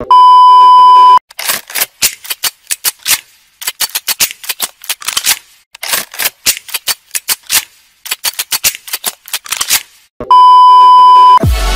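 A steady test-tone beep lasting about a second, then a rapid, rhythmic string of gunshots and gun-action clicks edited into a beat, from a pump-action shotgun and a pistol, then the test-tone beep again near the end.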